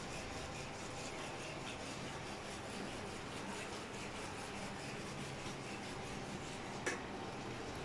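Steady background hiss of room noise, with one short sharp click about seven seconds in.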